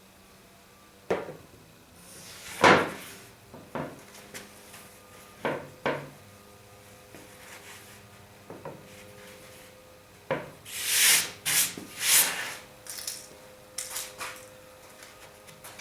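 Irregular knocks and clunks of tools and parts being handled and set down, with a stretch of scraping and rubbing about two-thirds of the way through.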